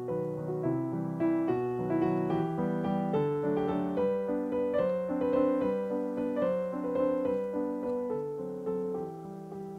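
Background piano music: a gentle melody played over chords.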